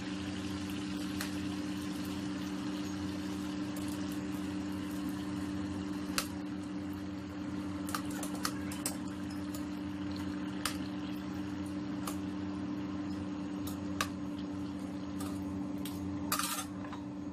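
Spring rolls deep-frying in a pot of hot oil: a steady sizzle with a sharp pop every few seconds and a short crackle near the end, over a constant low hum.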